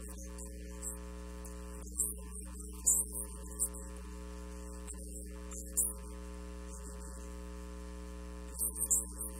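Steady electrical mains hum with a ladder of overtones in the audio feed, broken by a few short, sharp hisses high in pitch.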